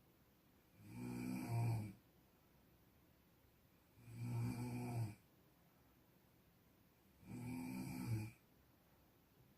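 A person snoring in a slow, regular rhythm: three snores of about a second each, roughly three seconds apart, with quiet breathing pauses between.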